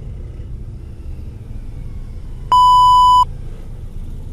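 Toyota Vios driving with a steady low rumble of road and engine noise and no metal scraping, the grinding cured by bending the front brake backing plate away from the rotor. About two and a half seconds in, a loud steady electronic beep lasts under a second.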